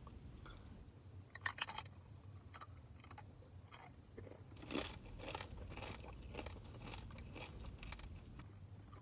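Fresh tortilla chips crunching as they are bitten and chewed close to the microphone: a string of short crisp crunches, the sharpest about one and a half seconds in and just before five seconds.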